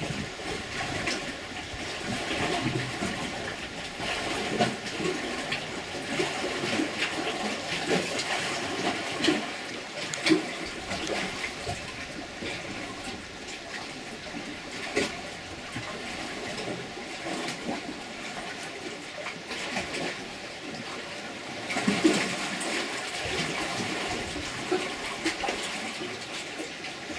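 Water rushing and splashing without a break, with irregular louder splashes, the loudest about ten seconds in and again a little past twenty seconds.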